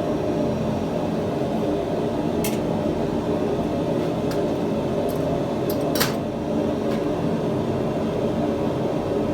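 Steady mechanical running noise, a low whir with a hum in it, overlaid by about six short sharp clicks, the loudest about six seconds in.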